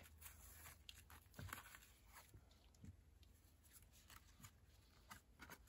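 Near silence, with a few faint rustles and light taps of cardstock and ribbon as a small folded-paper journal is untied and opened by hand.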